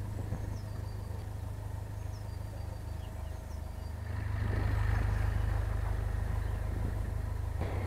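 Narrowboat's diesel engine running steadily as the boat cruises, a low even hum. It grows louder about four seconds in as the boat passes under a stone bridge arch.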